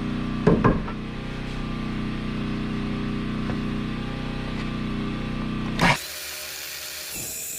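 A steady motor hum with a couple of wooden knocks about half a second in. A louder knock near six seconds, where the hum cuts off abruptly and leaves a quieter rustling.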